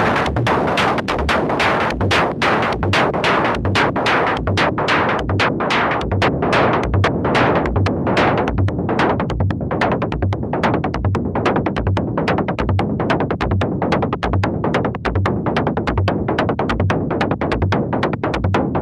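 Electronic techno track with synthesizer over a drum machine: a steady kick drum about two beats a second under fast, busy high percussion.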